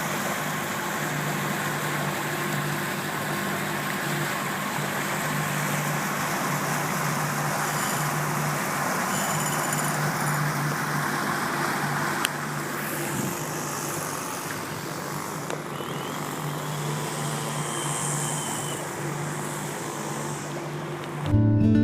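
An engine running steadily at a constant speed, its even low hum under a steady rushing noise, with one sharp click about twelve seconds in.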